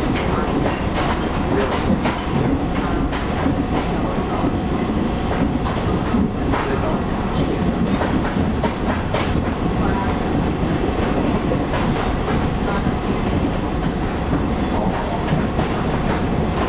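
Taiwan Railways local commuter train running at speed, heard from inside the passenger car: a steady rumble of wheels on rail, scattered clicks from the track, and a faint steady tone.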